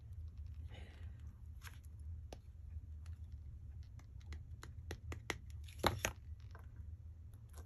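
Light taps and clicks of a wood-mounted rubber stamp being dabbed on an ink pad and handled on a craft mat, with a few louder taps about six seconds in, over a low steady hum.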